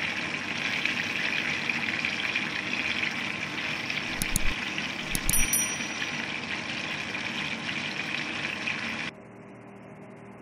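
Flour-battered chicken pieces deep-frying in a pot of hot oil: a steady, loud sizzle that cuts off suddenly near the end. Around the middle, a few sharp clicks and a short high chime cut across it.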